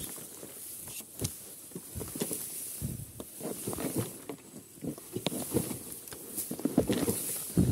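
Tall grass brushing and rustling against a dirt bike, with scattered knocks and scuffs as the bike is worked down a steep, muddy rut; the loudest knocks come near the end.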